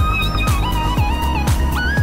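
Background music with a steady beat: a deep kick drum about twice a second under a high melody that slides between held notes.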